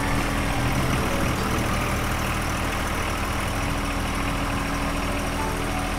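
Small John Deere loader-backhoe tractor's engine running steadily while its backhoe digger is worked with the hydraulic levers.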